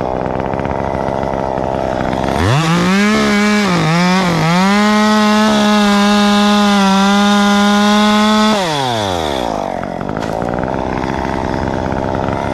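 A two-stroke chainsaw idling, then revved to full throttle about two seconds in. It dips in pitch twice, holds a steady high whine for several seconds, then drops back to idle.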